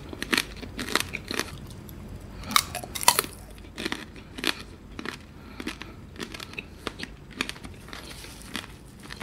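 Tanghulu (green grapes in a hard, glassy sugar coating) being bitten and chewed: the candy shell cracks and crunches in quick, irregular crackles, the loudest a little before the middle.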